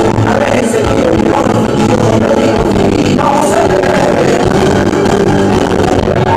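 Loud music with a singing voice and a steady beat, rock-style.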